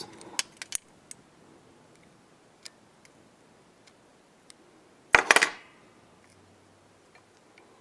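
A few small sharp clicks of fly-tying scissors snipping off excess hackle, then one louder metallic clatter about five seconds in.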